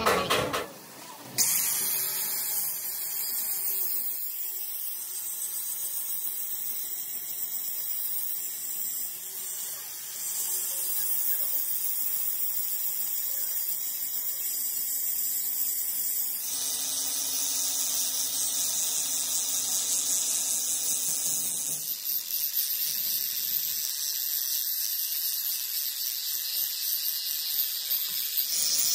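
Metalworking machine noise: a steady, high-pitched whine and hiss from a tool working steel. It changes character abruptly several times.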